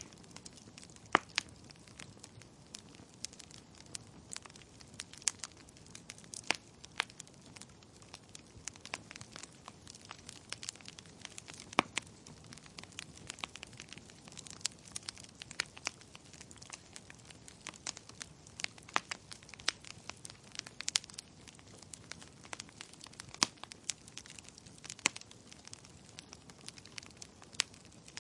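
Wood fire burning in a fireplace, crackling with irregular sharp pops and snaps over a soft steady hiss, a few pops louder than the rest.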